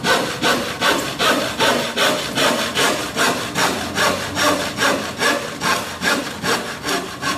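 Hand saw cutting through a wooden board in quick, even back-and-forth strokes, about three a second.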